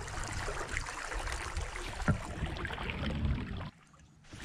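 Water lapping and trickling against a fishing kayak's hull, with small clicks and one sharper click about two seconds in. The sound cuts off suddenly shortly before the end.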